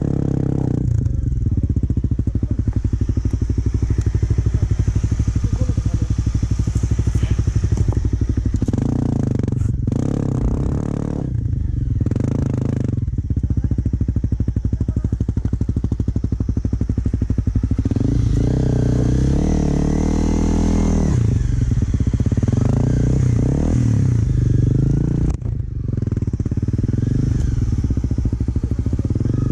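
Single-cylinder dual-sport dirt bike engine running under way, its pitch rising and falling several times in the second half as the throttle opens and closes.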